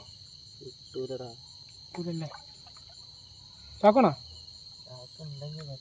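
Steady high chirring of night insects, crickets, over short bursts of people's voices about a second in, two seconds in, four seconds in (the loudest) and near the end.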